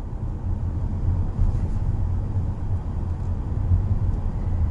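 Steady low rumble of road and engine noise inside the cabin of a moving 2018 Mercedes-Benz A-Class.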